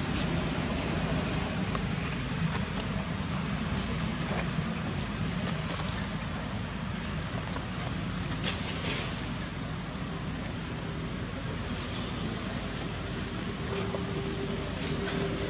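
Steady outdoor background noise with a low rumble, and a few faint rustles about halfway through.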